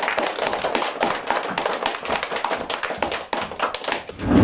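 Audience applauding: many quick, overlapping hand claps.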